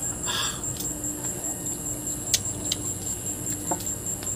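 A crunchy bite into a slice of raw green mango about half a second in, followed by a few sharp crunching clicks of chewing. Behind it, insects trill steadily in a high, evenly pulsing tone.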